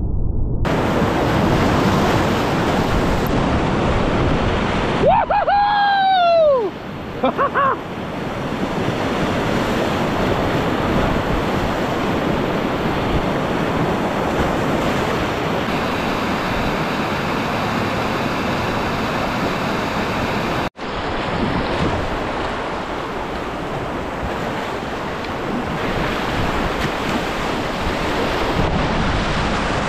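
Rushing whitewater churning around a kayak, with wind buffeting the camera microphone. About five seconds in, a short call falls in pitch over the water noise.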